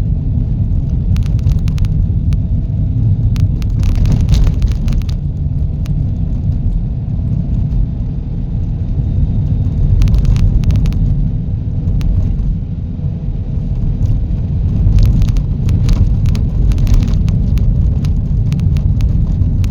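A car driving: a steady low rumble of road and engine noise, with brief knocks now and then.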